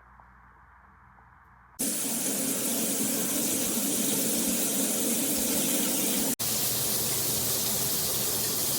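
Veken dual shower head spraying water, a loud steady hiss that starts abruptly about two seconds in, with a split-second break in the middle.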